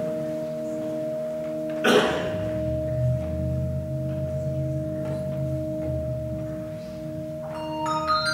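Handbell choir ringing sustained chords that hang and ring on. About two seconds in there is a sharp strike and low bass bells enter. Near the end a quick run of high bell notes steps downward.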